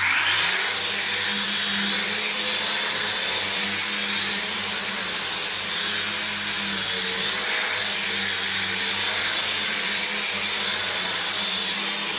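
Small toy quadcopter drone's motors and propellers whirring steadily at full speed on a test run, after its front-left propeller gear was repaired. The whir starts abruptly and holds an even pitch and level.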